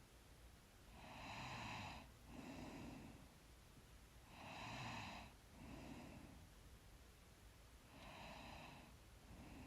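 Faint, slow breathing of a sleeping person close to the microphone. There are three breath cycles, each a louder breath followed by a softer one, coming about every three and a half seconds.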